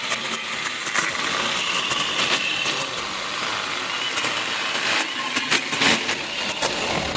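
Saker mini battery-powered electric chainsaw running and cutting through a small log: a steady high motor-and-chain whine with scattered crackles as the chain bites the wood.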